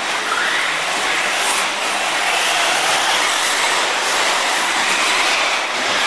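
Electric brushless 1/8-scale RC buggy running on a dirt track: a steady, rattly rushing noise of its drivetrain and tyres on loose dirt.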